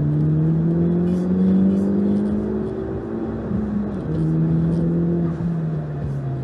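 A motor vehicle engine pulling under acceleration. Its pitch climbs for about three and a half seconds, drops abruptly at a gear change, then runs steadier at a lower pitch.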